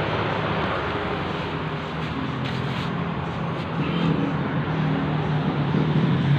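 Suzuki Satria FU 150's liquid-cooled 150 cc single-cylinder engine idling steadily, freshly rebuilt and described as running smoothly; it grows louder toward the end.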